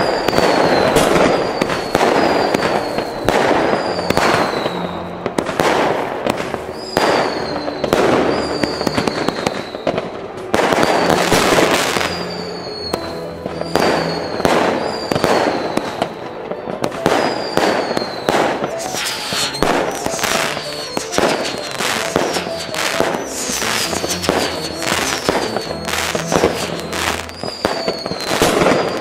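Fireworks going off in dense bangs and crackling, with a short falling whistle about once a second, mixed over background music.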